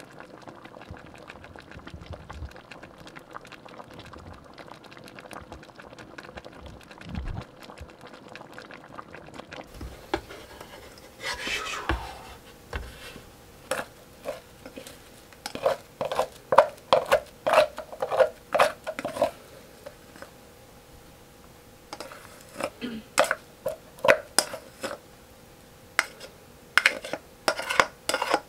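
A pot of kare-kare simmering with a soft, steady bubbling hiss. About ten seconds in this gives way to a plastic rice paddle scraping and knocking against a rice cooker's inner pot as steamed rice is scooped out, in quick runs of sharp clacks.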